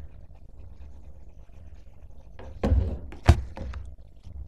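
Handling noise near the microphone: a scuffing rustle about two and a half seconds in, then one sharp knock on the table a moment later.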